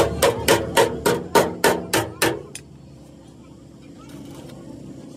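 Hammer blows, about nine in quick succession over a little more than two seconds, each with a short ring, then stopping.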